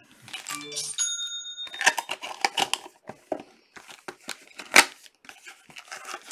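Foil trading-card pack wrappers crinkling and being torn open by hand: a run of sharp crackles, the loudest a little under five seconds in. A short electronic chime sounds about a second in.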